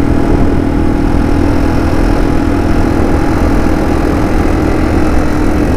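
2008 Yamaha TW200's single-cylinder engine running steadily at cruising speed, with an even hum and no change in pitch.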